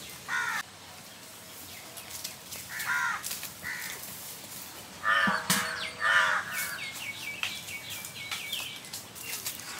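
Crows cawing, about five harsh calls spread across a few seconds, with smaller birds chirping quickly in between.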